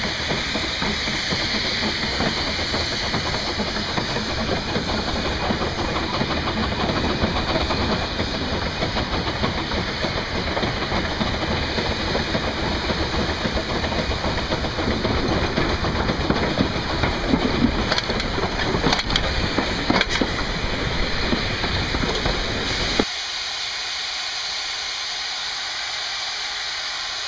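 Narrow-gauge steam locomotive working along the line: a steady noise of exhaust steam and running gear, with a few sharp clicks near the end of the run. About 23 seconds in it cuts suddenly to a quieter, steady hiss of steam from the locomotive standing at rest.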